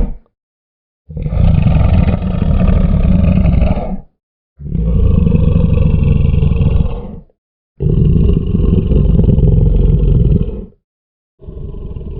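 Crocodile growling: the end of one growl, then four long, low growls of about three seconds each with short pauses between them, the last one quieter.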